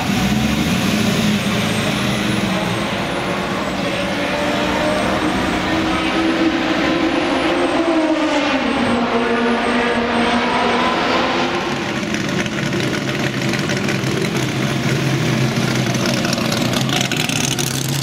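Classic Ferrari GT's V12 engine running at low speed as the car rolls slowly past, its pitch rising and then dropping back about halfway through as the revs come up and fall.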